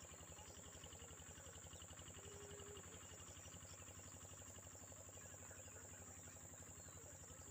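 Near silence with a faint, steady, high-pitched insect chirring from the surrounding fields.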